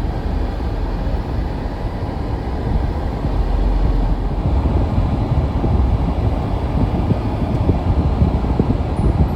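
Steady low rumble of a car on the move, with road and engine noise heard from inside the cabin.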